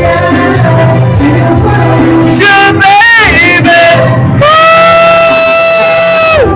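A man singing a ballad over backing music. A wavering vocal phrase comes about three seconds in, then one long held note that slides down at the end.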